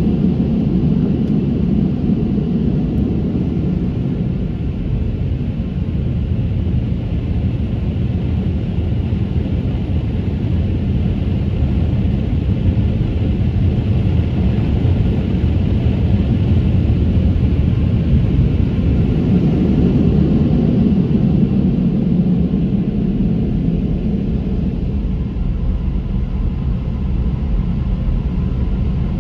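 Car wash air-dryer blowers running steadily, heard from inside the car: a loud, even rumble with a hiss of rushing air.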